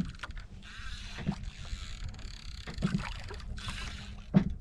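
Wind and water noise on a small wooden outrigger boat at sea, with a few dull knocks about every second and a half.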